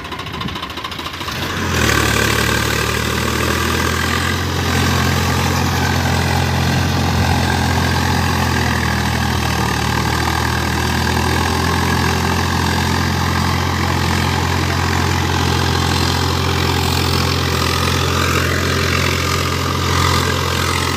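Tractor diesel engine running; about two seconds in it picks up to a louder, higher speed and holds steady.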